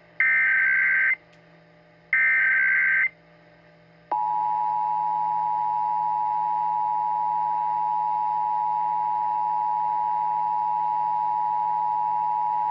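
Emergency Alert System tones. First come two one-second bursts of the SAME header's digital data, a second apart. About four seconds in, the steady two-tone EAS attention signal starts and holds unchanged.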